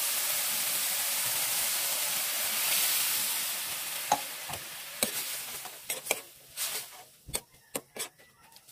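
Vegetables sizzling loudly in a hot frying pan, the sizzle swelling as liquid goes into the pan about three seconds in, then dying down to a low simmer. From about four seconds in, a spatula clicks and scrapes against the pan as the vegetables are stirred.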